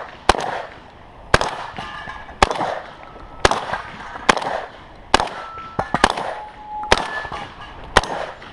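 Shotgun firing nine shots at roughly one-second intervals, each echoing. After several of the shots a short ringing tone follows as steel targets are hit.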